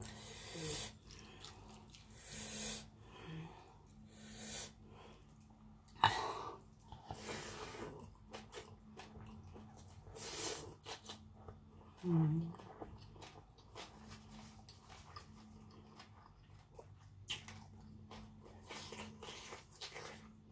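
A person chewing a mouthful of raw beef with sticky rice and spicy papaya salad close to the microphone: wet mouth and chewing noises coming in separate bursts every couple of seconds.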